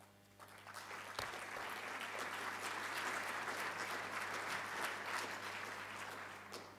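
Audience applauding at the end of a speech, building up within the first second, holding steady and tapering off near the end.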